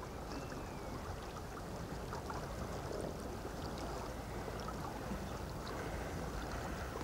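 Steady wash of shallow water with a low rumble of wind on the microphone.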